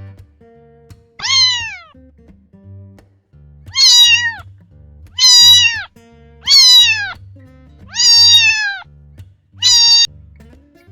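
A cat meowing six times, each meow loud and falling in pitch, over quiet background guitar music.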